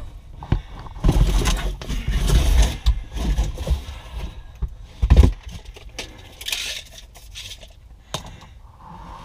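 Scraping, rubbing and knocking as screws are driven through a mounting board into the wall studs, with one heavier knock about five seconds in.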